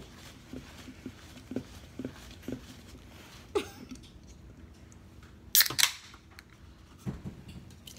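Close-up ASMR tapping and handling sounds from hands on things near the microphone: soft taps about twice a second, a sharper click a little before halfway, then a loud cluster of sharp crackling clicks about two-thirds in.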